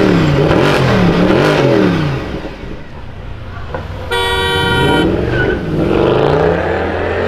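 Mercedes-Benz C63 AMG's 6.2-litre V8 blipped three times, its pitch rising and falling quickly. About four seconds in, a car horn sounds for about a second, then an engine revs up again.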